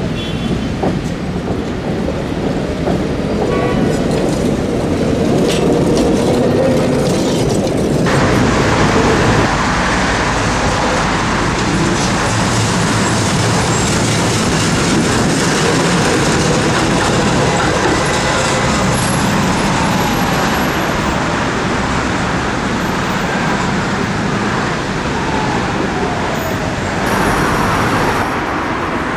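City tram running along street rails, its wheels and running gear rumbling, with road traffic behind. The noise grows brighter about eight seconds in, and a faint falling whine runs through the middle.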